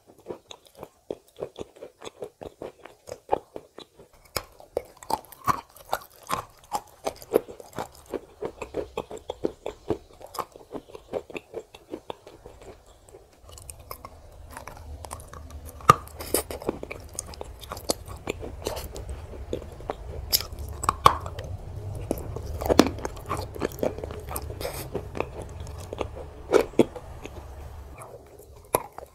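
Close-miked chewing and crunching of hard chunks of white edible clay coated in wet clay paste: a dense run of small crunches. About halfway through, a low rumble joins and a few louder crunches stand out.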